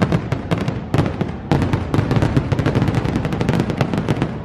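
Fireworks show: a rapid, dense volley of sharp bangs and crackles, many a second, without a break.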